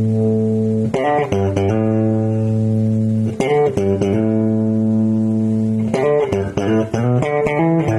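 Electric bass guitar played through a Fender Bassman 20CE bass amp: long held notes, with a quicker run of plucked notes in the last two seconds.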